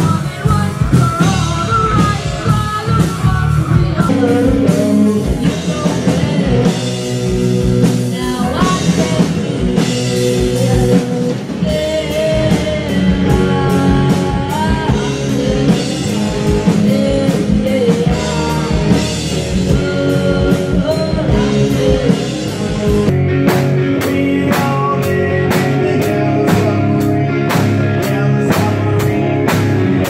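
Live amateur rock band playing amplified: electric guitars, bass and a drum kit, with a lead vocalist singing. About two-thirds of the way through the sound changes and a steady, even drum beat comes forward.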